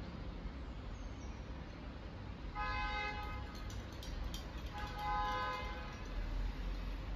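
A vehicle horn honking twice, each honk a steady tone about a second long, over a low steady rumble.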